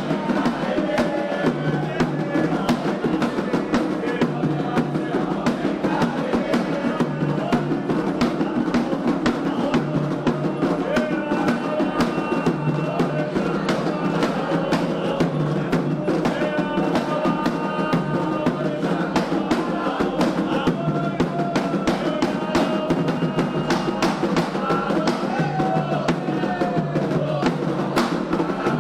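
Candomblé ritual drumming: atabaque hand drums played in a steady, driving rhythm with other percussion, and voices singing over it.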